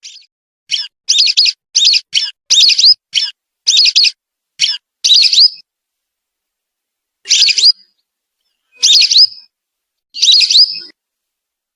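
Whistling duck (belibis) calls: a quick run of about a dozen short whistled notes over the first five seconds, then three longer calls about a second and a half apart.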